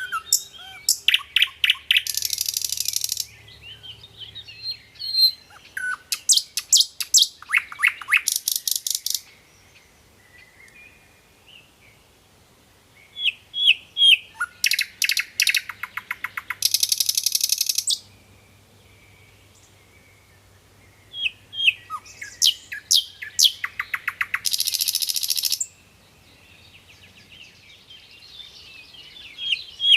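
A sikatan londo flycatcher singing in loud bouts of rapid, sharp high chirps that run into a dense buzzy trill. There are three bouts, each a few seconds long, with short quiet pauses between them.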